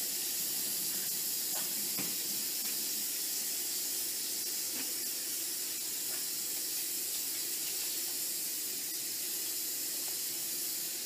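Kitchen faucet running in a steady stream into the sink, the water splashing over a cat being rinsed under it.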